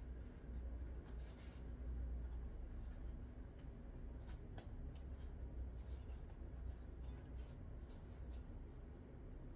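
Faint, scratchy rustling of hands moving over nylon tights and clothing, over a low steady hum, with one sharp click about four and a half seconds in.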